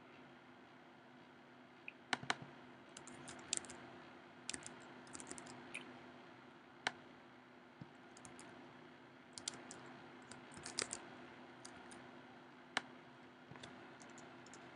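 Computer keyboard keystrokes and mouse clicks, faint, in short scattered clusters of a few taps with pauses between, over a faint steady hum.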